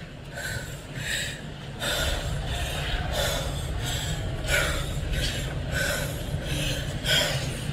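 Tornado wind rushing past and buffeting a phone's microphone: a steady deep rumble with irregular gusty surges.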